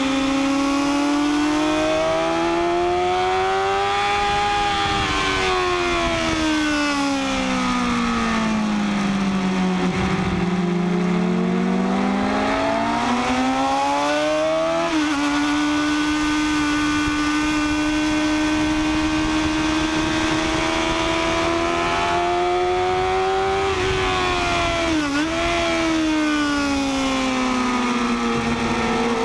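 Sport motorcycle engine heard from on board at speed, pulling up and easing off in turn: the note rises, drops to its lowest about ten seconds in, climbs again with a sharp step at a gear change, holds high and steady, dips briefly around twenty-five seconds, and falls near the end. A steady rush of noise runs under it.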